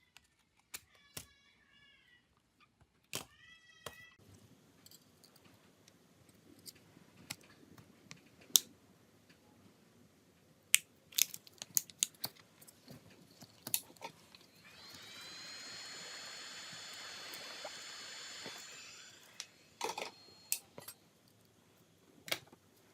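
Scattered small clicks and taps of hand tools working on a phone. Two short, wavering high-pitched calls come near the start. Past the middle, a whirring sound with a high tone rises in, holds steady for about four seconds, then stops.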